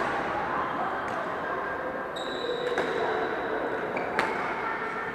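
Badminton rackets striking a shuttlecock in a doubles rally: three sharp hits about a second and a half apart, the last the loudest, in a large sports hall. A thin high squeak runs for about two seconds in the middle.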